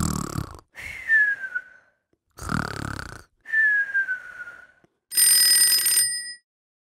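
Cartoon snoring sound effect: two snores, each followed by a falling whistle. Then about a second of alarm-like ringing.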